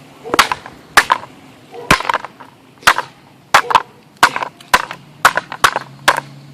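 Broken plastic pieces of a smashed coffee maker being struck hard: about a dozen sharp cracks and knocks in quick, irregular succession.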